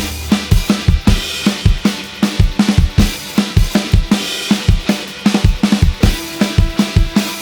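Background music with a steady drum-kit beat: kick and snare hits several times a second over held synth tones.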